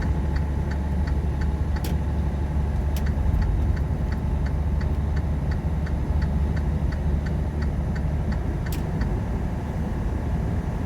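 Semi truck's engine and road noise heard inside the cab, a steady low drone while cruising on the highway, with a steady light ticking about three times a second and a few sharper clicks.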